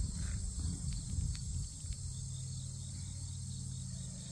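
Steady high-pitched chorus of late-summer insects, such as crickets, running through. A low rumble under it in the first couple of seconds, then a faint steady low hum.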